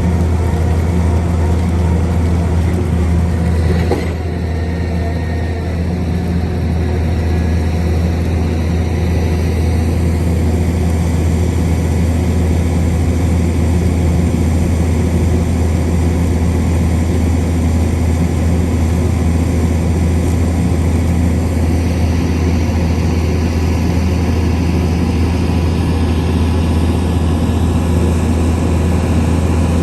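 Heavy construction-machine engine running steadily with a constant low drone, and a brief knock about four seconds in.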